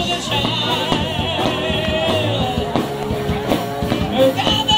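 Rock-style music with a singing voice and drums, playing steadily.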